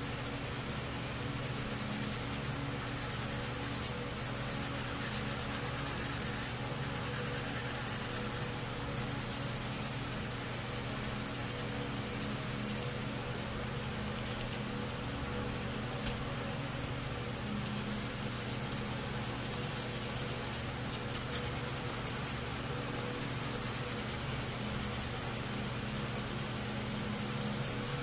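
Dry hand-sanding of aerosol primer on a plastic model hood with an Eagle Abrasives K-grit sheet on a sanding block: a steady, scratchy back-and-forth rubbing. It pauses for a few seconds about halfway through, then resumes.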